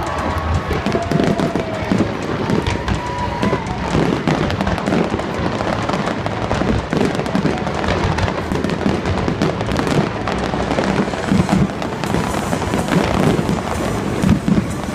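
Fireworks going off in quick succession, a dense run of bangs and crackles, with music playing.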